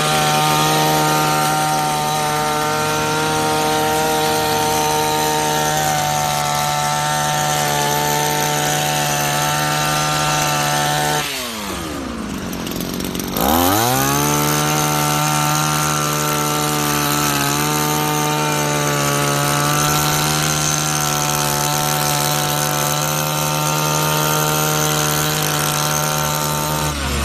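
Two-stroke engine of a gasoline hedge trimmer running at full throttle while its blade cuts through a hedge. About eleven seconds in, the throttle is let off and the engine falls to a low idle for about two seconds, then revs back up and holds steady. It drops away again near the end.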